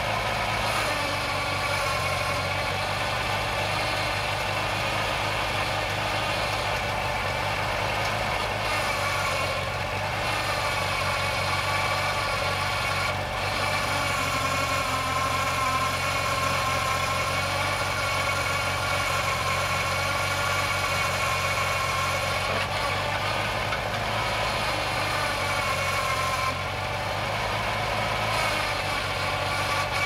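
Engine of a homemade hydraulic backhoe running steadily while the backhoe digs and dumps soil, its pitch dipping slightly now and then.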